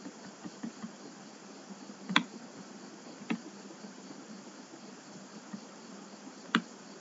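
Computer mouse clicking a few times, sharp single clicks with the loudest about two seconds in and near the end, over a steady background hiss.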